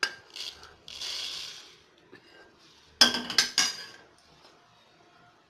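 Roasted sesame seeds pouring and rattling into a stainless steel mixer-grinder jar, a short hissing pour about a second in. Around three seconds in, a quick run of loud metal clinks and scrapes against the jar as the last of the pan's contents is tipped in.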